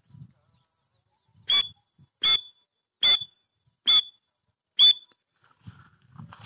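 Teetar (francolin) calling: five loud, shrill, clipped notes evenly spaced about a second apart, starting about a second and a half in. Faint rustling follows near the end.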